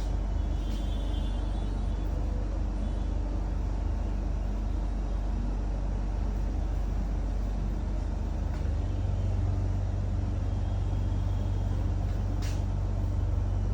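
A steady low hum runs throughout, with a faint click about twelve seconds in.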